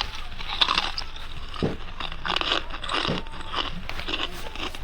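Ice being bitten and chewed: a steady run of irregular, sharp crunches.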